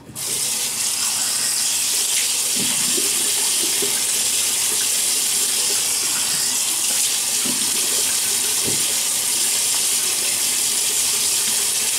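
Water tap running steadily into a sink, with a few faint splashes as hands wet the face.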